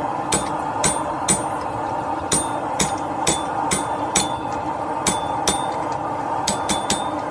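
Hammer blows on hot steel at the anvil, with the anvil ringing briefly after each strike. The strikes come roughly twice a second, bunching closer together near the end, over a steady rushing background noise.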